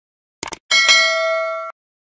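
Channel logo sound effect: a few quick clicks, then a bright bell-like ding that rings for about a second and cuts off suddenly.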